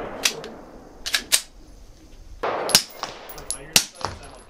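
Suppressed 9mm pistol shot, an HK VP9 fitted with a SilencerCo Hybrid suppressor, about two and a half seconds in, with several shorter sharp cracks and clinks spread around it.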